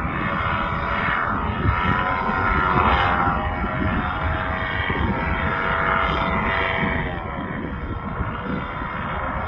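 Propeller aircraft engine droning overhead, its pitch wavering and then dropping about seven seconds in as it passes, over a rough low rumble.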